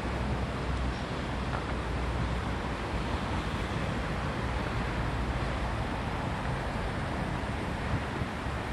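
Steady outdoor background noise: a constant low rumble and hiss with no bird calls standing out.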